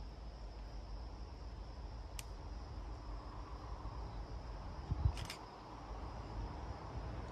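Insects, likely crickets, chirping in a steady high drone over a low steady rumble, with a short thump about five seconds in.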